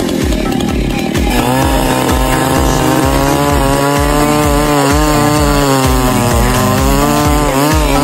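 Gasoline chainsaw running at full throttle and cutting into a large log, its pitch wavering as the chain bites, over background music with a steady beat.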